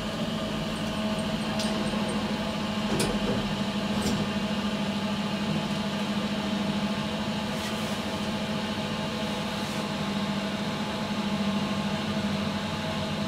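Car of a 2012 SMW traction elevator travelling between floors, heard from inside the car: a steady low hum with a few light clicks.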